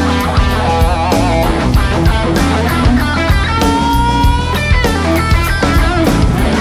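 Live blues-rock band playing, led by an electric guitar solo with bent notes, slides and a long held note about four seconds in, over a steady drum beat and bass.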